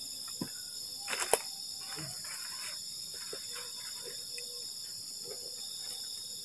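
Steady high-pitched drone of night insects. Over it come a single sharp click about a second in and soft rustles of movement on dry leaves.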